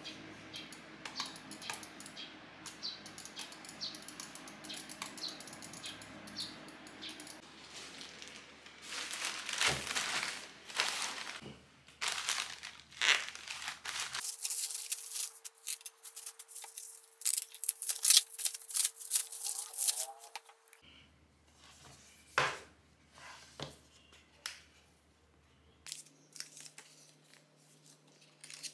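Computer mouse clicking in quick small clicks, then a plastic courier mailer bag torn open and crinkled, the loudest part, about nine to twenty seconds in. Near the end, a few soft ticks and rustles as a cardboard box is handled.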